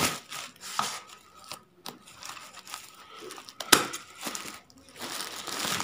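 Scissors cutting into a plastic parcel sack, with the bag rustling and crinkling as it is handled and a few sharp snips, the loudest about three and a half seconds in.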